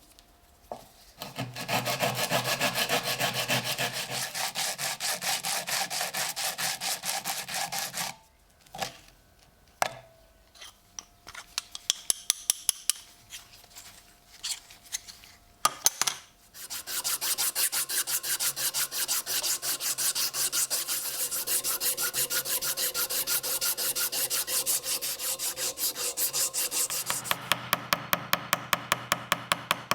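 Hand-tool rasping on a workpiece: fast, even back-and-forth strokes in two long runs, with a quieter stretch of scattered clicks between them. Near the end the strokes slow to about three sharp strokes a second.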